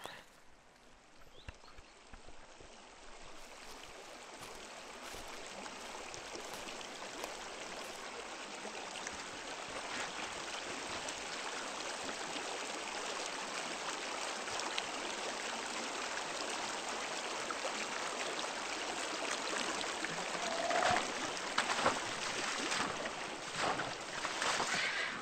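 Running stream water, a steady rushing that grows gradually louder, with a few sharper splashes or clicks near the end before it stops abruptly.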